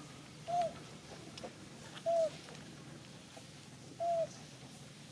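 Three short, clear animal calls, about two seconds apart, each bending up and then down in pitch.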